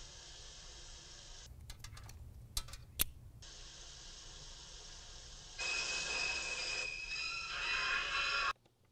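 Shower water running as a steady hiss, with two sharp clicks about two and a half and three seconds in. From just past halfway a louder rush with high, shrill, steady tones rises over it, then everything cuts off abruptly near the end.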